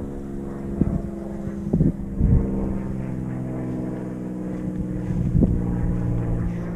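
A motor running steadily, giving a low, even drone, with a few dull thumps and some wind on the microphone.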